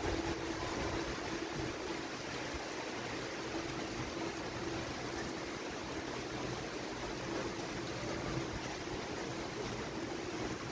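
Steady rain falling, a constant even hiss of water with no letup.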